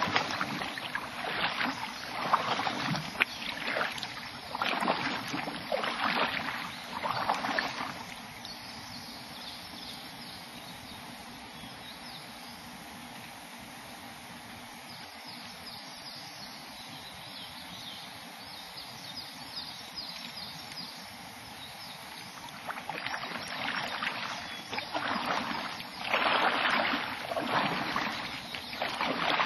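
Kayak paddle strokes splashing in the water, about one a second. They stop for about fifteen seconds, leaving only a faint steady water hiss, then start again near the end.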